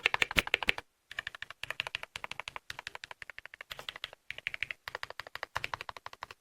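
Fast typing on a magnetic-switch gaming keyboard: quick runs of crisp key clacks, many a second, broken by a few short pauses.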